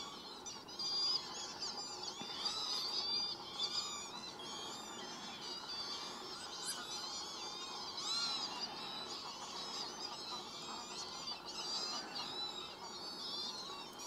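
A mixed flock of waterbirds calling all at once: a dense, continuous chatter of many short, high chirps and whistles overlapping one another, with some lower calls among them.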